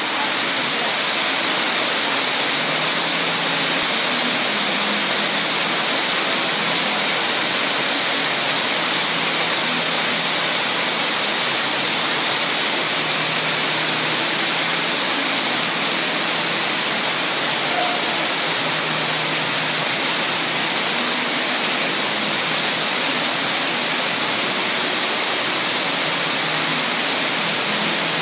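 Water from dozens of fountain jets spraying up and splashing back into the pool: a steady, even rushing hiss.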